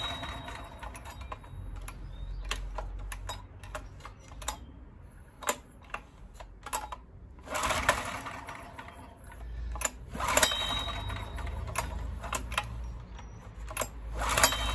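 Honda EX1000 generator's recoil starter rope pulled again and again, several pulls with clicks between them, the engine turning over without catching.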